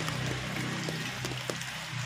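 Background music with low, steady notes that shift in steps, and scattered faint clicks.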